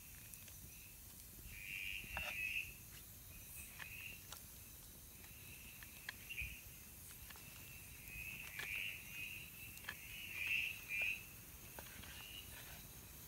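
Night chorus of calling insects, crickets among them: a steady high-pitched trill that swells louder about two seconds in and again several times in the second half. Scattered short sharp clicks and crackles sound over it.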